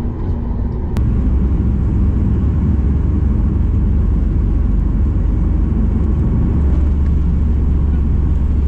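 Jet airliner on its take-off roll, heard from inside the cabin: a steady low rumble that steps up louder about a second in as the plane accelerates down the runway.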